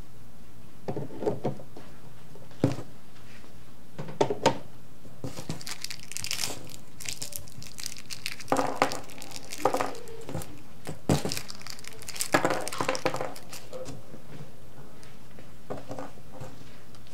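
A plastic hardware bag crinkling as metal cabinet-door hinges are taken out, with scattered sharp clicks as the hinges are handled and set down, in irregular bursts.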